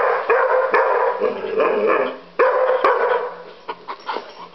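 Collie-type dog barking repeatedly at a plush Christmas decoration: a quick run of sharp barks, loudest in the first half, a second loud burst at about two and a half seconds, then lighter, sparser barks near the end.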